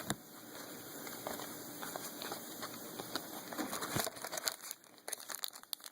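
Faint rustling and small clicks of trading cards and pack wrappers being handled.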